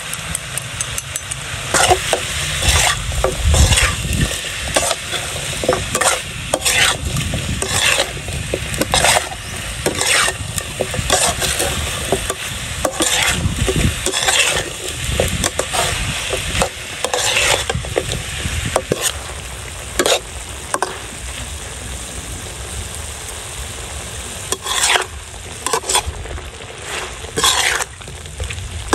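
Pork belly and green chillies stir-frying in a metal wok: steady sizzling, with the metal spatula scraping and knocking against the wok about once or twice a second. There is a short quieter stretch with fewer strokes past the middle.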